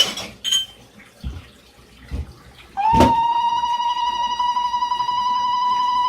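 A woman's zaghrouta (ululation): one long, high trilling cry that starts about three seconds in and holds a steady pitch, after a few faint knocks.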